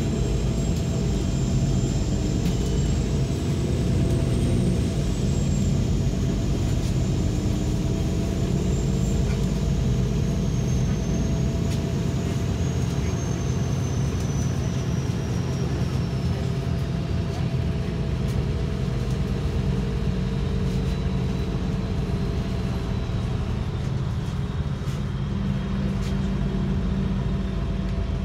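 Steady engine and road noise heard from inside a moving vehicle, with a thin high whine that drifts slowly lower over the stretch.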